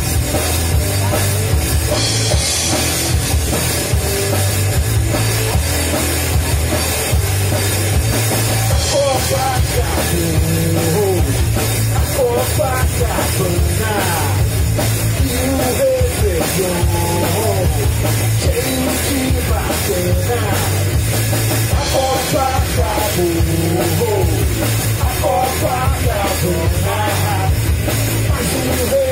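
Live rock band playing: electric guitar, bass guitar and drum kit, loud and steady.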